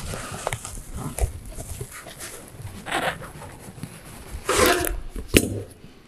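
Sheet-metal roofing flashing being worked with round-nose pliers at its folded corner: irregular creaks, scrapes and clicks of the metal as it is twisted and pulled into line, with a louder rustling scrape about four and a half seconds in and a sharp click just after.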